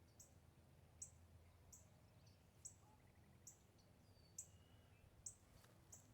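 Near silence outdoors: a faint, very high, short chirp repeating about once a second, with a few faint bird whistles between.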